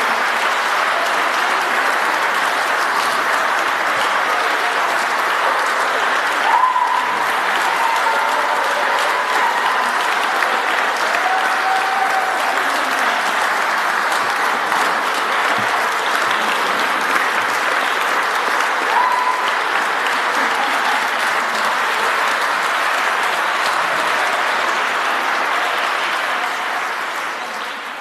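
Audience applauding steadily, with a few voices calling out above it; the applause fades out near the end.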